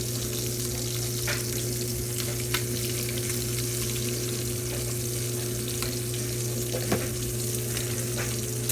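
Thick-sliced ham sizzling steadily as it fries in bacon grease in a pan, with three light clicks over a steady low hum.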